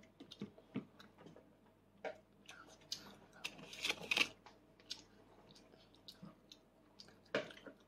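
Faint, scattered small clicks of a toddler eating with a fork from a plastic plate, with a short, louder hissing noise about three to four seconds in.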